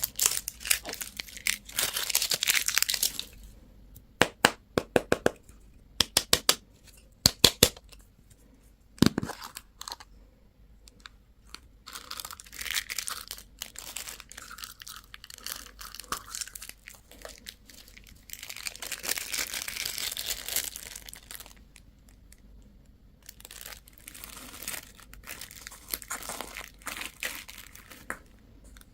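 Plastic candy and toy wrappers crinkling and tearing open in hand, in spells of rustling. A run of sharp clicks comes a few seconds in, and a single thump near the ninth second.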